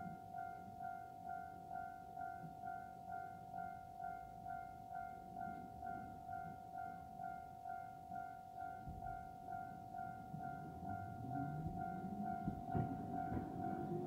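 Japanese level-crossing warning bell ringing: an electronic two-tone ding repeated a little over twice a second, signalling that a tram is coming. In the last few seconds the rumble and rising motor whine of the approaching Hankai Tramway tram grow beneath it.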